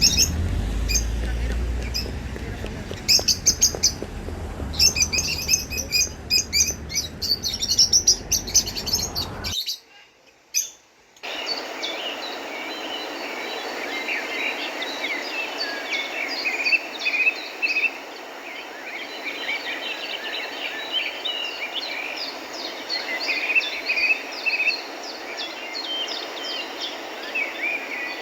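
Wild birds chirping and singing, dense short calls over a low rumble. The sound drops out briefly about ten seconds in, then a steady chorus of birdsong carries on over a faint hiss.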